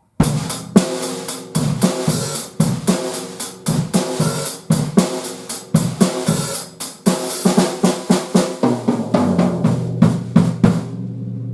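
Sonor Bop drum kit with poplar shells (18-inch bass drum, 12-inch and 14-inch toms, 14-inch snare) played in a busy groove with fills, with many rapid strikes. The playing stops near the end on a last hit, and the drums are left ringing with a low, steady tone.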